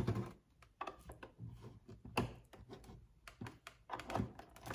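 Scattered light clicks and taps of a small plastic key being worked in the lock of a plastic doll packaging case.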